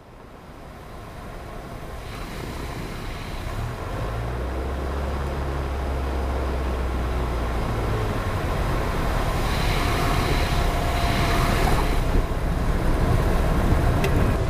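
Steady vehicle engine rumble with broad noise, fading in from silence and growing louder over the first few seconds.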